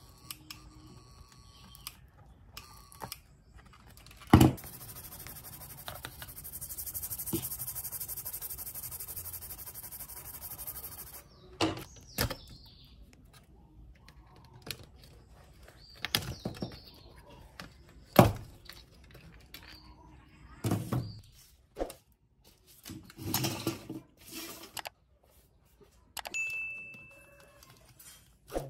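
Clicks, taps and knocks of a car cassette deck being taken apart by hand: its circuit board and metal tape mechanism being handled, the loudest two sharp knocks, one a few seconds in and one past the middle. A steady hiss runs for about five seconds after the first knock.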